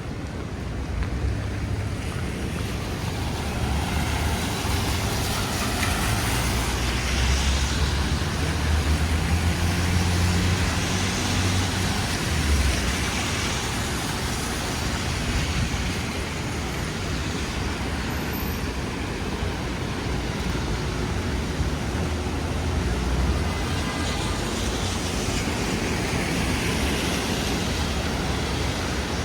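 City traffic on rain-wet streets: a steady wash of rain and tyre hiss under a low engine rumble, with several vehicles passing, their hiss on the wet pavement swelling and fading.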